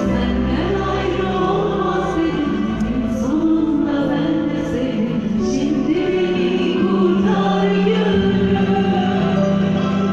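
Turkish classical music (Türk Sanat Müziği) choir and instrumental ensemble performing live, voices singing a gliding melody over long held low notes.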